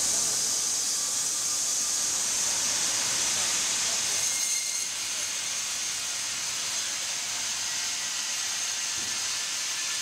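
Wood-Mizer WB2000 wide-band sawmill's band blade running and cutting through a log: a steady high hiss of sawing. About halfway through, a faint steady whine joins it.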